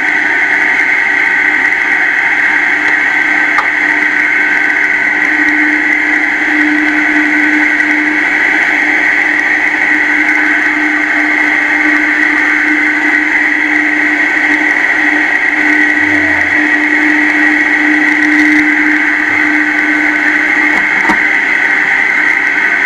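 Food processor motor running continuously, pureeing thawed green peas with lime juice into a smooth pea guacamole: a steady high whine over a lower hum.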